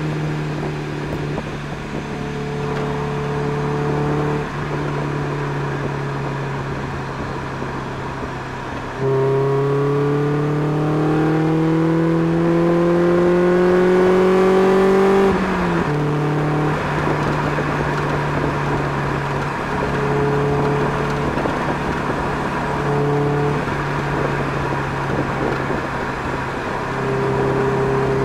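Mazda MX-5 NB's 1.6-litre inline-four running through a Friedrich Motorsport Group A exhaust with a 200-cell metal sports cat and tubular manifold, cruising steadily. About nine seconds in it comes on the throttle: the exhaust note jumps louder and rises steadily in pitch for about six seconds. It then drops back as the driver lifts and settles to cruising, with more throttle again near the end.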